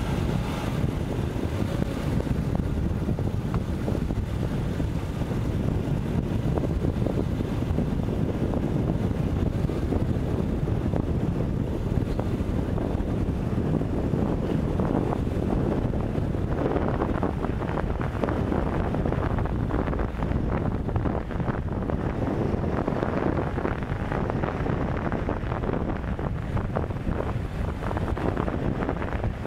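Wind buffeting the microphone of a camera held out of a moving car's driver's window, over the car's low driving rumble.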